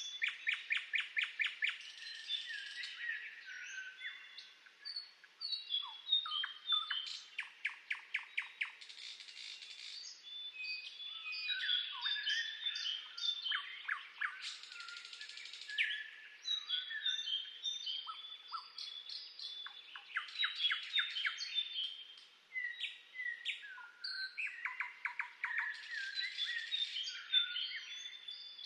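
Several songbirds singing at once: overlapping chirps and short whistled notes, with fast trills of rapidly repeated notes coming in every few seconds.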